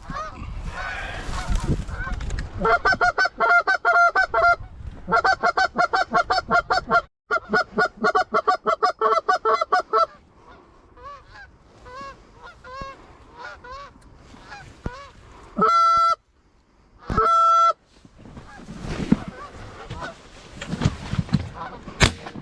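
Geese honking: a dense, rapid run of overlapping honks, then slower scattered honks. Near the end come two loud, long, steady honk-like notes.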